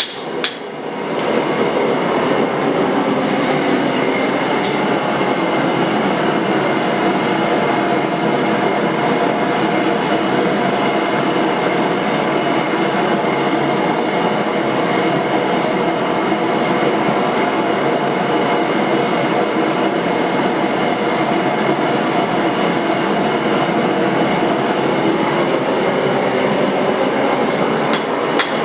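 Steady rushing noise from a forge-shop machine, with sharp hammer knocks at the very start and again near the end.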